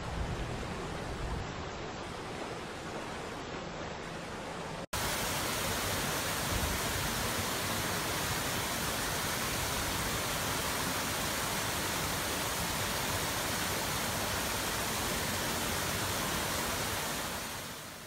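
Falling water of waterfalls, a steady even rush. About five seconds in it switches abruptly to another cascade of water, a little louder and brighter, which fades out near the end.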